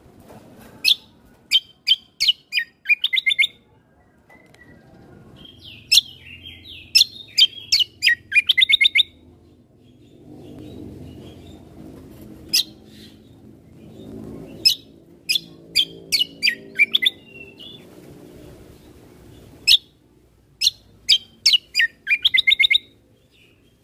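Kecial kombo (cucak kombo) songbird singing vigorously: loud, sharp, high chirps, some single and some in quick runs of repeated notes, with short pauses between phrases and a faint low background murmur.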